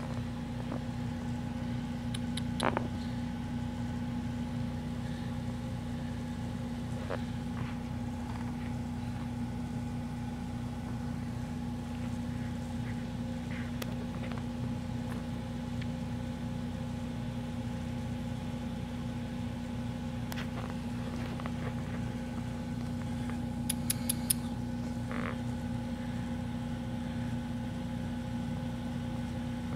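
Kitten purring steadily, a low rhythmic rumble, with a steady hum beneath it.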